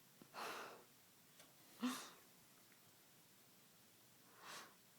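Faint breathing from a small child with the hiccups, with one sharper hiccup about two seconds in.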